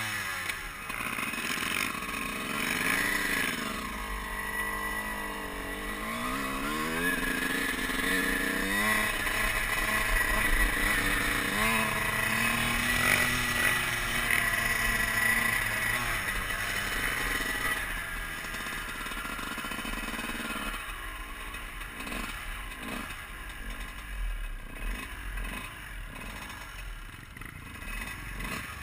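Dirt bike engine revving up and down while riding, with wind rushing over the helmet microphone; about two-thirds of the way through the engine drops back and runs more unevenly as the bike slows.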